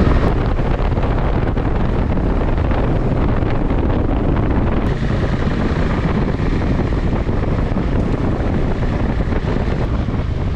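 Wind noise rushing over the camera microphone while riding a KTM 390 Adventure motorcycle, its engine running steadily underneath.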